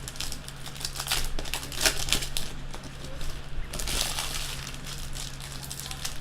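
Foil trading-card pack wrappers crinkling and crackling in irregular bursts as packs are handled and ripped open.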